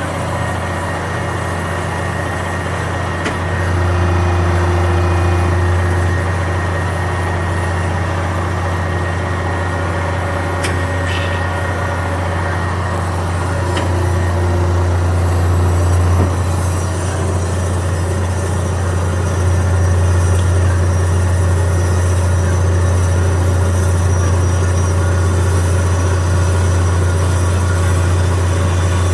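1978 Amada-built Kysor-Johnson HA-16 automatic horizontal bandsaw running its automatic cutting cycle: a steady machine hum that steps louder about three and a half seconds in, eases near fourteen seconds and rises again near twenty seconds as the cycle moves on.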